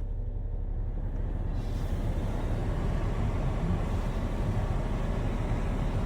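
Car engine idling, heard from inside the cabin, with the heater blower's steady hiss of air coming up about a second and a half in.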